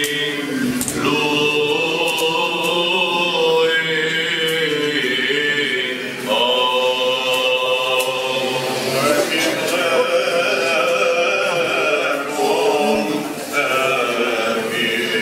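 Orthodox liturgical chanting: voices sing long held notes in phrases, a new phrase starting every few seconds.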